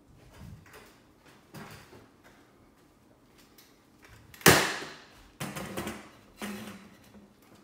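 Metal folding chair being opened and set down: one loud, sharp clack about four and a half seconds in, then two shorter knocks about a second apart. Two faint soft sounds come earlier.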